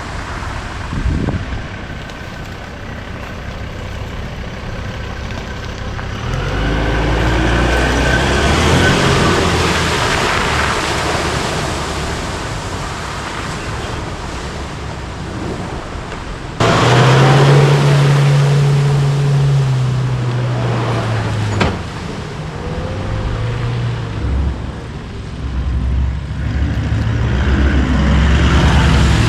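Four-wheel-drive vehicle engines running and revving while driving on a forest track, with tyre and wind noise. The sound changes abruptly a little over halfway through, then the engine pitch rises and falls again.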